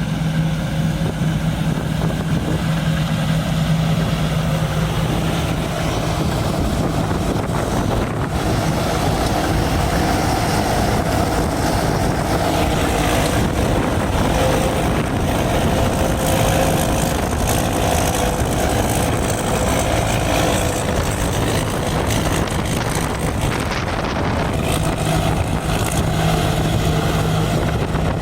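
Large rice combine harvester running steadily under load while harvesting standing rice: a continuous engine and machinery drone with a steady low hum.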